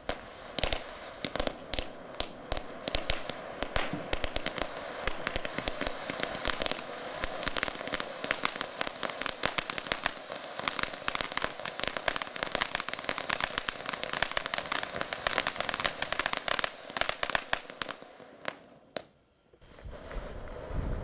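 A Kimbolton 150 mm giant fountain cone with a crackling fern effect, burning as a steady hiss packed with rapid, sharp crackles. About 18 seconds in it thins out and dies away, and a low rushing noise begins shortly before the end.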